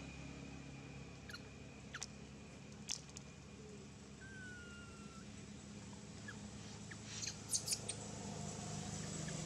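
Quiet outdoor ambience with a faint steady low hum, broken by a few brief high-pitched squeaks or chirps, most of them in two clusters about two to three seconds in and near the end, and one short falling whistle in the middle.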